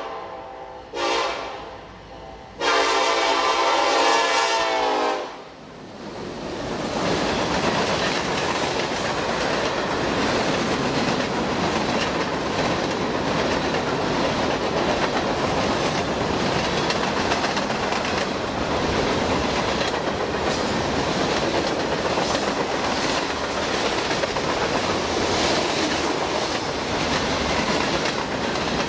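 Norfolk Southern freight locomotive's air horn blowing: the end of one blast, a short blast, then a long blast of about three seconds. Then the train rolls past, its freight cars making a steady rumble with the clickety-clack of wheels over the rail joints.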